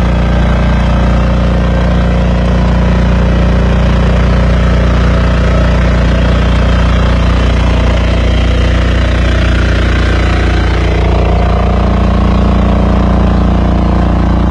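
BCS 740 two-wheel walking tractor's engine running steadily as it drives a rotary ditching implement through the soil; its note shifts slightly about eleven seconds in.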